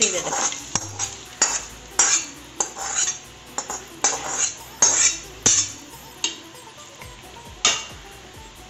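Metal spoon scraping and knocking against an aluminium kadai as fried onions and whole spices in ghee are scraped out into a pot of rice, then stirring in the pot. A dozen or so irregular clinks and knocks.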